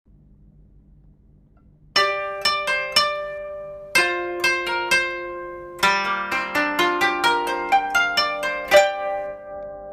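Instrumental music on plucked strings: single notes and chords struck one after another, each ringing out and fading, starting about two seconds in.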